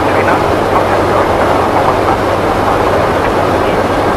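Steady rush of airflow and engine noise on the flight deck of a Boeing 747-400ERF climbing after take-off, with a low steady hum underneath.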